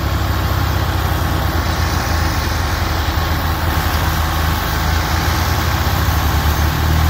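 Tractor diesel engines running steadily with a low, pulsing rumble, under load while towing a loaded sugarcane trolley out of wet ground.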